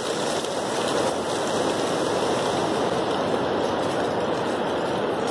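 Steady rain falling on the forest and shelter, a continuous even hiss whose higher part thins out about three seconds in.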